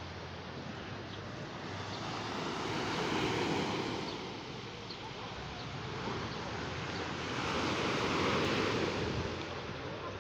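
Sea waves washing ashore, the rush of water swelling and fading twice, about five seconds apart.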